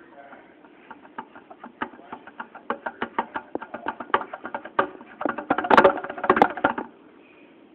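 Rapid light tapping, several taps a second, growing louder, then a burst of loud knocks and rubbing about six seconds in as the camera is handled.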